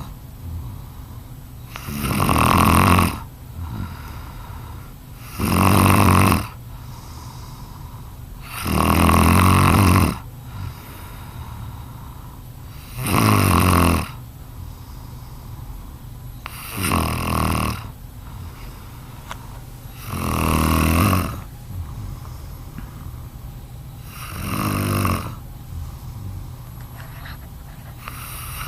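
Snoring: seven loud snores, each about a second long, coming every three to four seconds, with quieter breathing between them.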